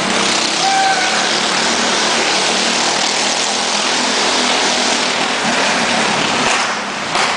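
Engine of a stunt vehicle circling the wooden Wall of Death drum, running loud and steady, with a short dip near the end.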